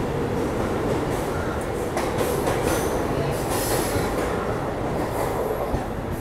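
Double-decker express train of LHB coaches rolling along a station platform as it pulls in, wheels rumbling on the rails. Brief high wheel squeals come about two to four seconds in, with a sharp click at about two seconds.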